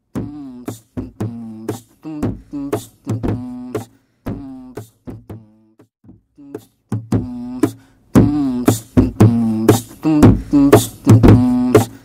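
Beatboxing: short hummed pitched notes mixed with sharp mouth clicks and snaps in a loose rhythm, getting louder about eight seconds in.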